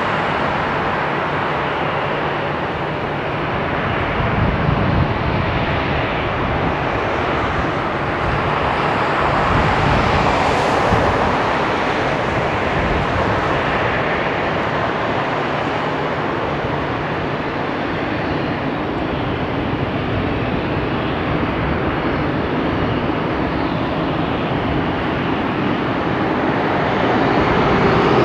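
Boeing 777F freighter taxiing, its two GE90 turbofans running: a steady jet rumble and hiss that swells briefly about ten seconds in and grows louder near the end.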